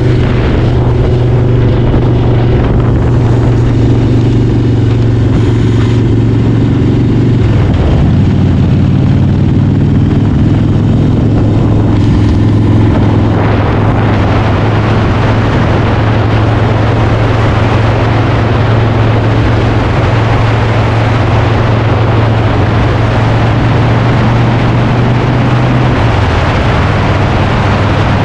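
Motorcycle engine running steadily, its note shifting about 8 and 13 seconds in. A broad rushing noise joins from about halfway through.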